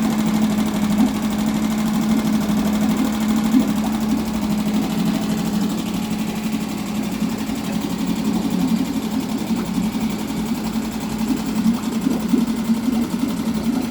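Mariner 3.5 hp outboard motor running steadily at a fast idle with its choke being taken off, just after a carburettor clean. It holds an even note with no stalling or surging.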